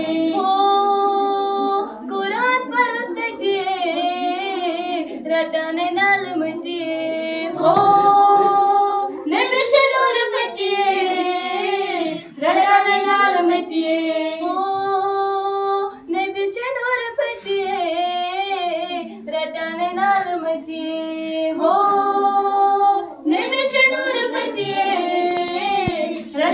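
A group of schoolgirls singing a song together without accompaniment, with long held notes between shorter melodic phrases.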